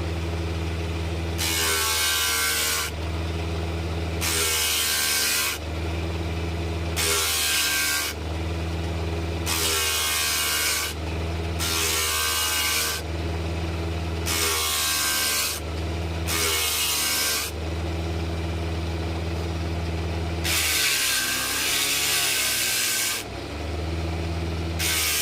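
Power sanding of a wooden mortar: a steady electric motor hum is broken about every one and a half seconds by a harsh, scratchy stretch of abrasive grinding against the wood, and the motor's hum drops while the abrasive bites. Near the end comes one longer grinding pass, with the motor's pitch wavering under the load.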